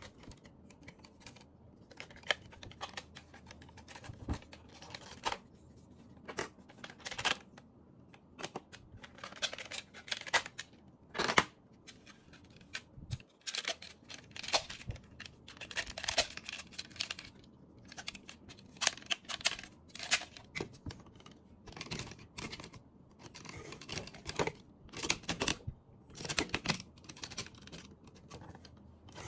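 Plastic clicks, snaps and short scrapes of a Sazer-X Magna Beet DX transforming robot toy being handled, its parts moved and clicked into place at irregular intervals.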